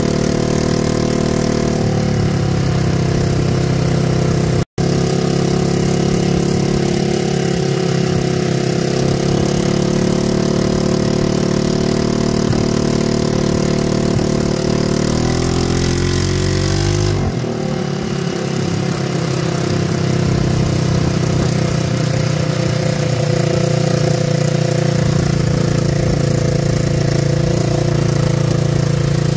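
Off-road vehicle's engine running steadily while driving a dirt trail, its pitch rising and then falling a little past the middle as the speed changes. The sound cuts out for a split second about five seconds in.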